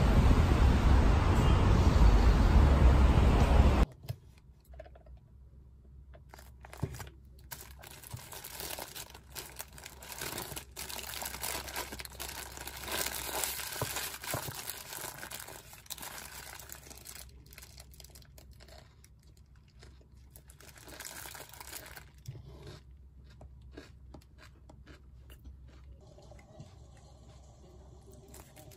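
Wind buffeting the microphone for about four seconds, then cut off suddenly. After that comes the quieter crinkling and rustling of a paper burger wrapper as a burger is handled and eaten, busiest midway and then thinning out.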